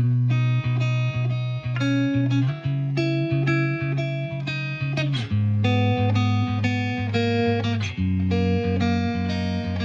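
Background music: a plucked guitar tune over a steady bass line.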